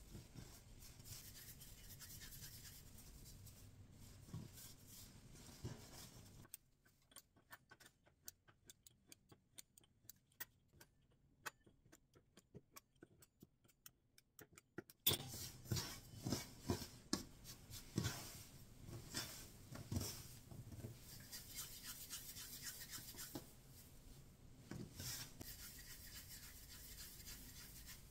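Floured hands rubbing small cubes of dough between the palms to roll them into balls, a soft dry rubbing with light knocks. For several seconds in the middle, a rapid run of light ticks as a pastry cutting wheel runs across dough strips on a wooden board, cutting them into small cubes.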